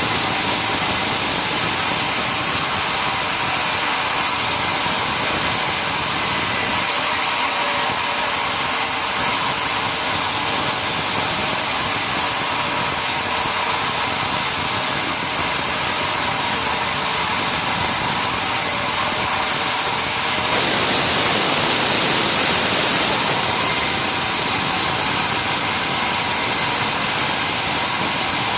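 Sawmill machinery running steadily with a high hiss. About 20 seconds in it gets louder and hissier, as if the blade has started a cut.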